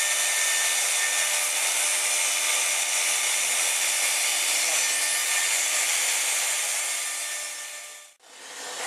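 Electric hot-air blower running steadily: an even rushing hiss with a faint motor whine. It fades and cuts off about eight seconds in.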